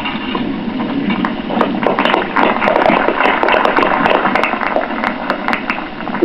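Crowd applauding: dense, irregular clapping that swells about a second in and fades away near the end.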